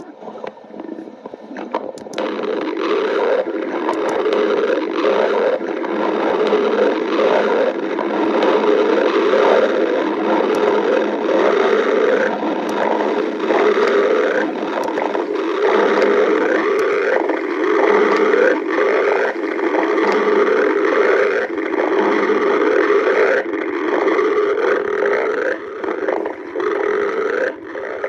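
Stomach growling: one long run of rumbling gurgles that waver in pitch. It swells up about two seconds in and keeps going with little break.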